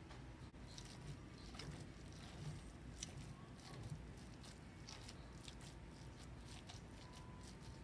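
Faint squishing of raw ground beef and Italian sausage being broken up and stirred with a wooden spoon in a bowl, with small clicks and scrapes of the spoon.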